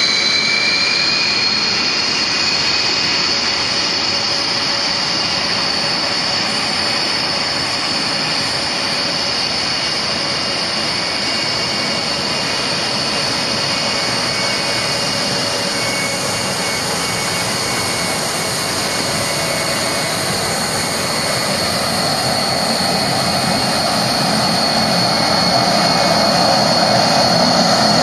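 B-1B Lancer bomber's four General Electric F101 turbofans running at taxi power: a steady high-pitched whine over a dense rushing jet noise. The whine edges up in pitch in the first couple of seconds, and the sound grows a little louder near the end.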